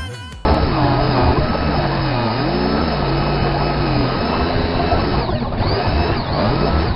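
Power sander running against a panel, starting suddenly about half a second in; a steady whirring whose pitch sags and recovers as the pad is pressed.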